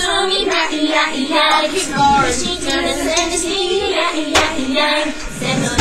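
Pop song with high-pitched sung vocals over a backing track, playing from a music video on a small screen, with a sharp click about four seconds in.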